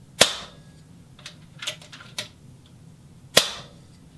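A .25 calibre FX Impact PCP air rifle fired twice, about three seconds apart, each shot a sharp crack with a short ringing tail, with lighter clicks of the action being worked between them. The hammer is on max power at 125 bar regulator pressure, so it is overpowering the valve: the loud, out-of-tune setting.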